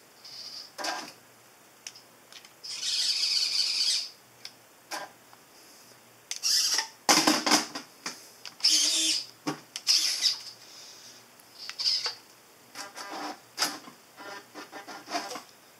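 Servo motors of a 3D-printed robot arm whining in short, stop-start bursts as the arm lowers and reaches forward, with clicks and clatter from the moving mechanism between them.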